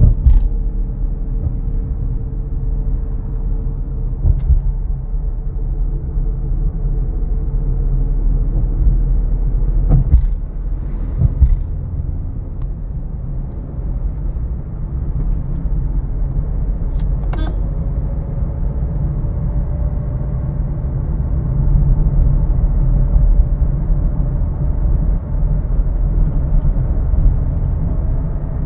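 Car interior noise while driving: a steady, muffled low rumble of engine and road, with a faint tone that drifts slowly in pitch. A few short clicks or knocks stand out now and then.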